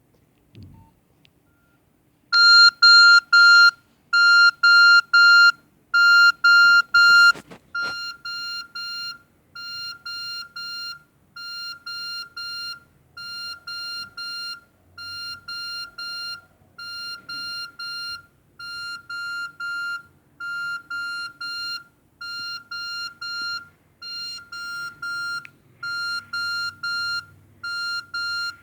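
Nokia 6300 mobile phone playing a beeping ringtone through its loudspeaker: a single high-pitched beep repeated rapidly in bursts, about one burst every two seconds. The first three bursts are loudest. The volume drops suddenly with a click partway through, then slowly rises again.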